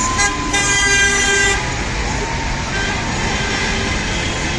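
Car horns honking in celebration over steady street traffic noise and voices: a long loud blast near the start, overlapped by a second horn, then a fainter, longer blast in the middle.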